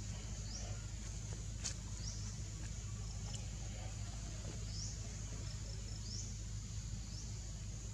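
Outdoor forest ambience: a steady high-pitched insect drone with short rising chirps about once a second, over a low steady hum. A faint click sounds about a second and a half in.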